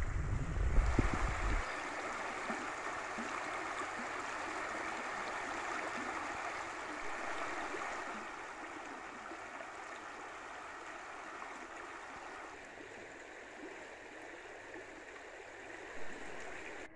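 Shallow rocky creek rushing and splashing over stones in a riffle, a steady rush of water that softens somewhat about halfway through. A low rumble on the microphone during the first second and a half.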